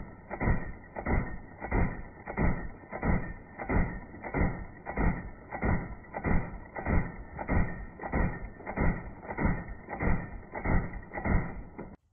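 Full-auto fire from an LMT MRP 5.56 mm external-piston rifle, slowed down along with slow-motion footage, so that each shot is a deep, dull thump about twice a second with no high end. It cuts off suddenly at the very end.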